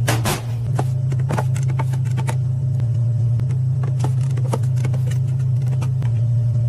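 Metal paint cans and their lids knocking and clinking as they are handled on a steel bench, a few sharp knocks in quick succession near the start and another cluster about four seconds in, over a steady low hum.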